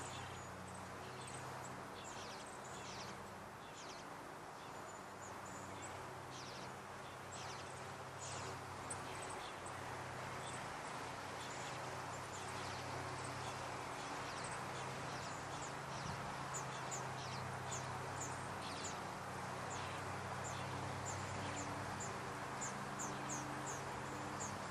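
Birds chirping: short, high chips that come scattered at first, then in quick runs near the end, over a steady low hum.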